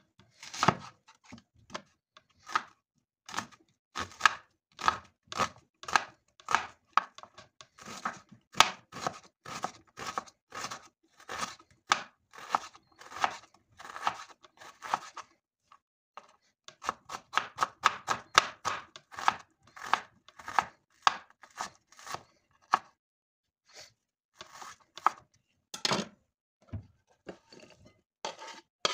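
Kitchen knife chopping an onion on a wooden cutting board: a long run of sharp knocks, about two to three a second, with a short pause midway and a quicker run after it. Near the end only a few scattered knocks as the diced onion is pushed off the board.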